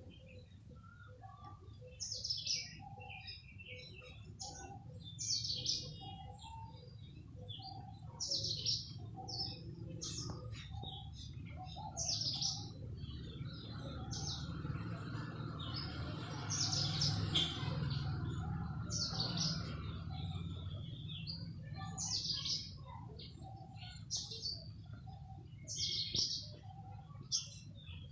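A small songbird chirping over and over, a short high chirp every second or two, over a steady low rumble that grows louder in the middle of the stretch.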